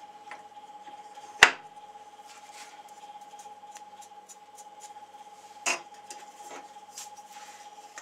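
Handling noises of a small clamp, wooden blocks and a metal square being set against a mitre saw's blade and fence: scattered light clicks and taps, with a sharp click about a second and a half in and another near six seconds. A faint steady high hum runs underneath.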